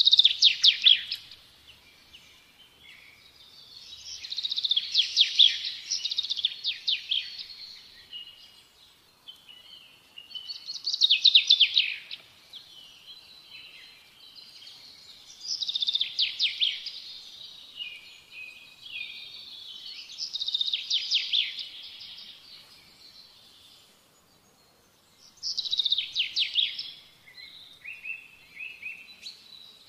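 A songbird singing: phrases of rapid, high trilled notes, each two to three seconds long, repeated about every five seconds.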